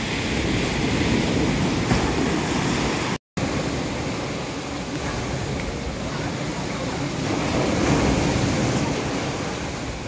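Sea waves breaking and washing up the beach: a steady rush of surf. The sound cuts out for a moment about three seconds in.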